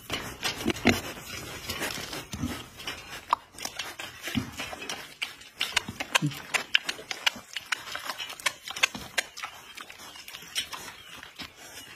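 Young pigs eating an ice cream bar from a hand: rapid wet smacking and chewing clicks, with a few short low grunts in the first half.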